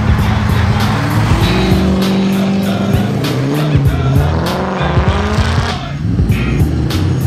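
Background music with a fast, steady beat over a deep bass line; the upper part of the music drops out briefly about six seconds in.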